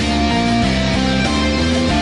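Instrumental passage of a Vocaloid song: guitar-led backing music with a steady bass line whose notes change several times a second, no singing.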